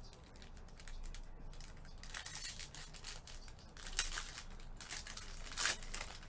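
Foil and clear plastic wrapping of a trading-card pack crinkling and tearing as gloved hands open it, in a run of quick rustling strokes that grow louder about two seconds in.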